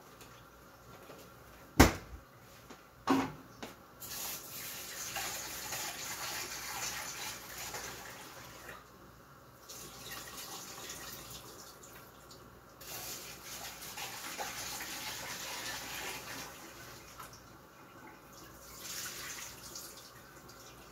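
Kitchen tap running into a sink in spells while a metal bowl is rinsed, the flow stopping and starting several times. Two sharp knocks come about two and three seconds in, the first the loudest sound.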